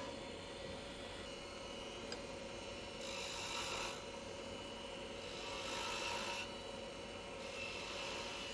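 Wood lathe spinning a small maple blank with a steady hum, while a skew chisel takes three short cuts of about a second each into the wood.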